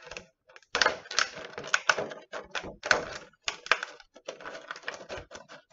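Scissors cutting through a thin clear plastic egg carton, separating the lid from the base. A quick, irregular run of crisp snips and plastic crackles starts about a second in.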